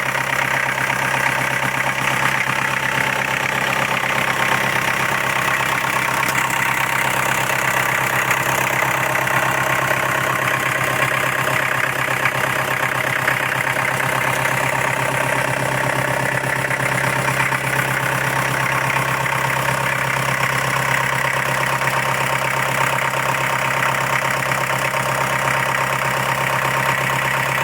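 Kubota V2203 four-cylinder diesel engine of a 27 kW generator set, running steadily at an even speed.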